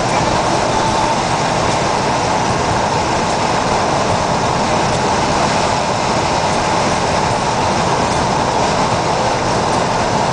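Steady road, tyre and engine noise inside a car's cabin while it cruises at an even speed, with no change in pitch or level.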